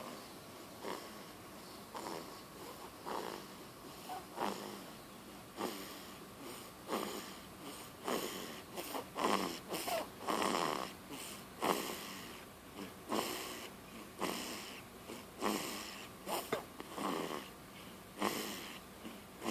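Snoring: short, rasping snores in quick succession, often in close pairs, about one breath a second.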